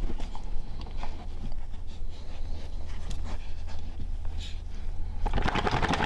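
Pregnant Weimaraner panting and pawing at a fleece blanket while nesting before labour, with scattered rustles and scrapes. Near the end comes a louder rustling burst as she shakes her head.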